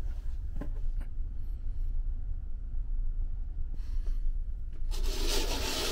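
Steady low drone of the ferry's engines carried through the hull into the berth, with a few light knocks about a second in as shoes are set down on the rack. Near the end a short rushing swish, the berth's fabric curtain being drawn along its rail.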